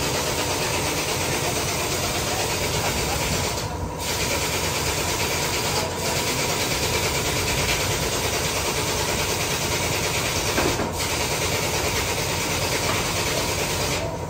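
An engine idling steadily under a broad hiss of workshop noise, with short breaks about four, six and eleven seconds in.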